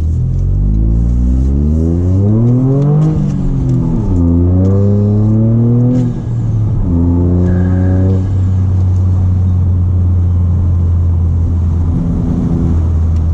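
Toyota GR Corolla's turbocharged three-cylinder engine, breathing through an aftermarket Fi valved exhaust with the valves open and an MST intake, pulling under acceleration. The revs climb, fall back about three seconds in, and climb again. After about eight seconds the engine eases off and holds a steady low drone.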